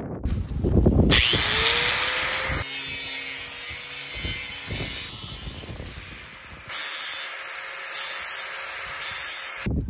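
Electric angle grinder switched on, its motor whining up to speed, then running with its disc on the work, the noise rising and falling in steps. It cuts off suddenly near the end.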